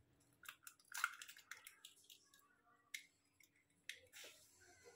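An egg being cracked and broken open over a bowl of flour: a few faint, short clicks and crackles of the shell, the loudest about a second in.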